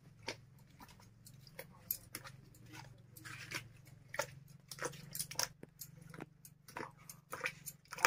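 Wooden pole mashing mango pulp in a metal bucket: irregular wet squelches and soft clicks, a few a second, over a faint steady low hum.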